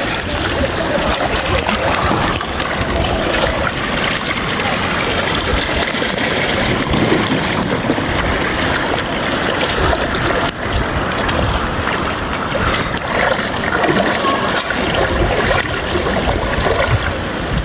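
Floodwater rushing and trickling steadily, a dense, even, loud noise.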